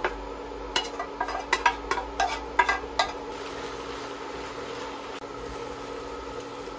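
A wooden spoon knocks and scrapes against a frying pan as kimchi and sausage are stir-fried, in a quick run of about ten knocks over two seconds. After that come a steady frying sizzle and a light hum while the rice is stirred.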